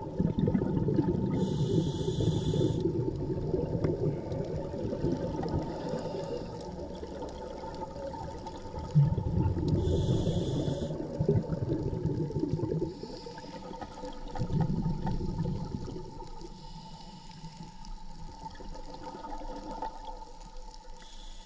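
Scuba diver breathing through a regulator underwater: a short hiss on each inhalation, about 1.5 s and 10 s in, and a rushing, bubbling noise of exhaled air in waves between them.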